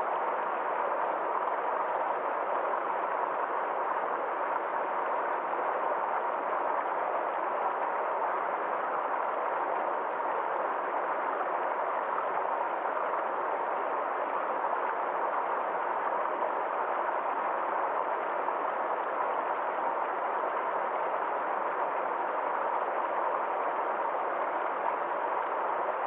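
Fast mountain stream rushing over boulders in small whitewater cascades: a steady, unbroken rush of water.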